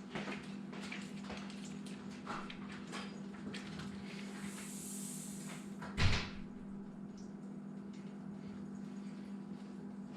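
Light clicks and knocks over a steady low hum, with one sharp, louder knock about six seconds in.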